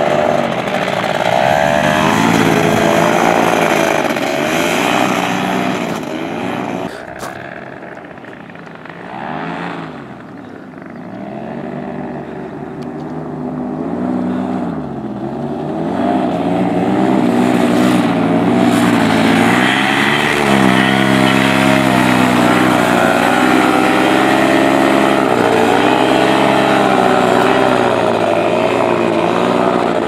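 Paramotor engine and propeller running hard, the engine note rising and falling again and again as the throttle changes. It fades for a few seconds in the first half, then comes back louder.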